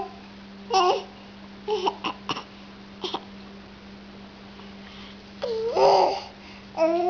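Baby babbling in short high-pitched vocal sounds with pauses between them: a brief one about a second in, a few quick short sounds around two to three seconds, a longer one near six seconds, and a drawn-out vocalization beginning near the end. A faint steady low hum runs underneath.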